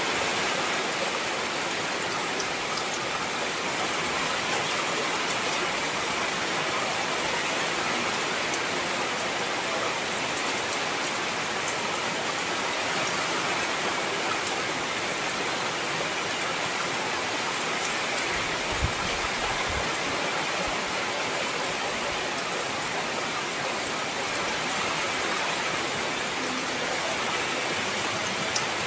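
Heavy rain falling steadily, an even dense hiss of drops. A single brief low thump comes about two-thirds of the way through.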